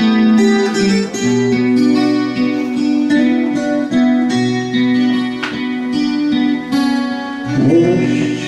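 Live guitar music with long held notes over the chords, an instrumental passage of a song.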